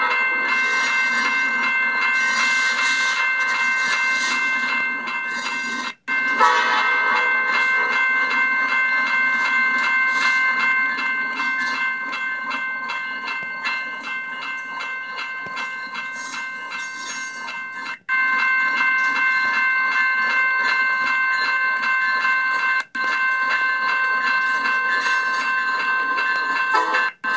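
Diesel locomotive's bell ringing steadily and repeatedly as the locomotive rolls slowly toward the listener at the head of a freight train.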